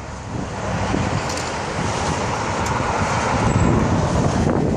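Road traffic passing, the tyre and engine noise of passing cars swelling through the middle, with gusty wind buffeting the microphone.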